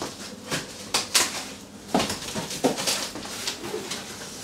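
Large cardboard shipping box being opened by hand: its flaps scrape, rustle and bump in a series of irregular short rasps and knocks.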